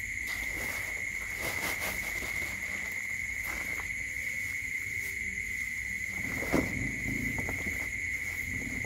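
Dry straw rustling as it is gathered and pushed into a styrofoam box, over a steady high-pitched whine. About six and a half seconds in comes a short falling animal cry, the loudest moment.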